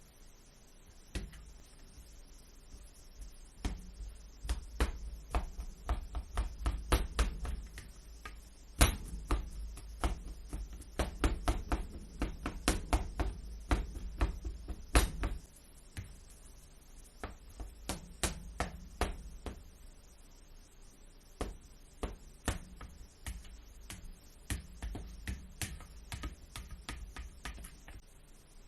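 Kitchen knife chopping on a cutting board: a run of sharp, even knocks a few per second, stopping for a couple of seconds about halfway and then resuming.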